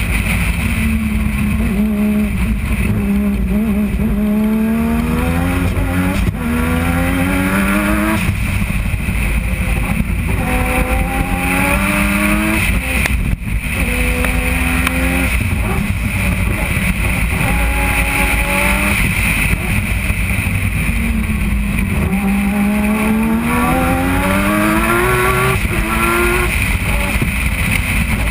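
Turbocharged three-rotor rotary engine of a race car, heard onboard at full race pace. It climbs in pitch through repeated runs, dropping back at each gear change and dipping once around the middle before pulling up again. A steady wind hiss lies over it.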